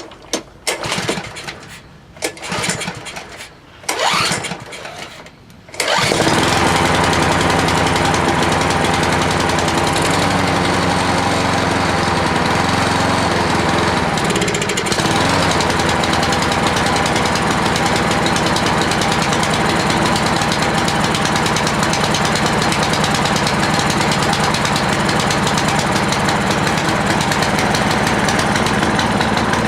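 Cub Cadet 173cc OHV lawn mower engine being pull-started on choke with a newly fitted carburettor: several tugs on the recoil starter cord over the first six seconds, then it catches and runs steadily and loudly. Its note dips briefly about fifteen seconds in.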